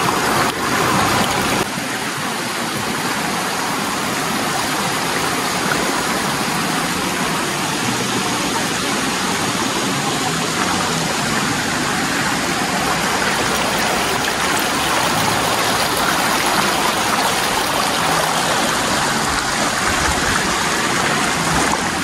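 River water rushing steadily.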